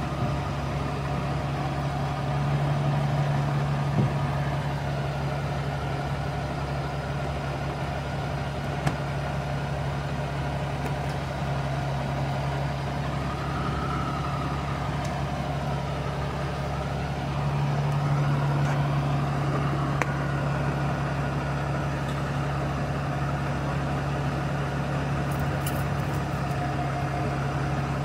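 A vehicle engine idling steadily, with a few light clicks over it.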